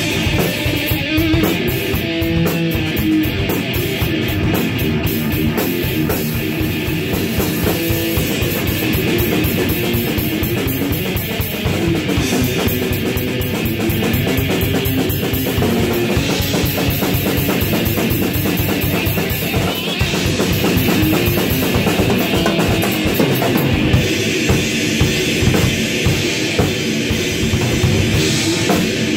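Electric guitar and drum kit playing a heavy metal jam together: a guitar riff over steady, fast drumming with kick drum and cymbals.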